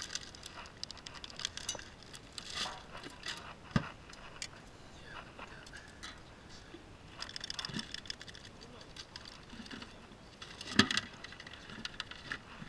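Hands handling fishing gear at a cooler: a plastic zip bag crinkling, with scattered clicks and knocks of tools and lids and one sharp knock near the end.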